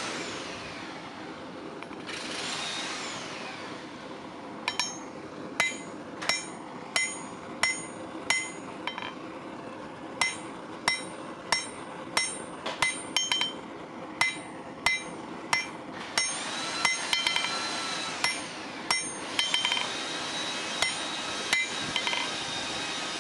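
Blacksmith's hammer striking steel on an anvil, each blow ringing, about one to two strikes a second with short pauses, starting about five seconds in; this is forging out the point of the anvil's spike. A steady rushing noise runs underneath.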